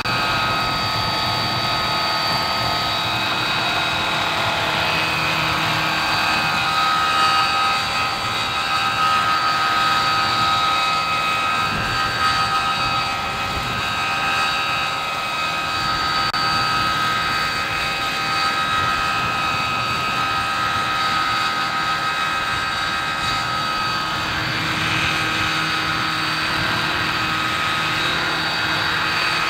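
Large radio-controlled scale model helicopter (Bell UH-1 Huey style) hovering low over grass: a steady high-pitched whine from its drive over the whir of the rotor blades.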